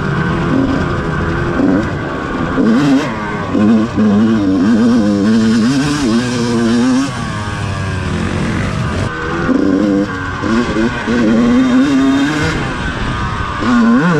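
Dirt bike engine being ridden hard, its note rising and falling again and again as the rider works the throttle and shifts along the trail.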